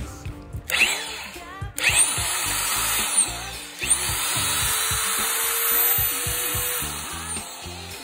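DeWALT D28111 angle grinder running free on a test run after a repair with a new gear and new bearings: it spins up about a second in, drops out briefly twice and picks up again with a rising whine, then slows down with a falling whine near the end. Background music plays underneath.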